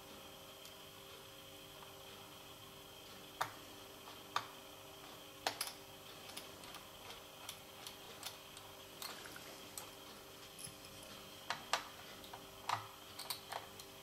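Small screwdriver and tiny metal screw clicking and tapping against an M.2 SSD and the laptop's plastic chassis as the drive's retaining screw is fitted: irregular sharp ticks from about three seconds in, over a faint steady hum.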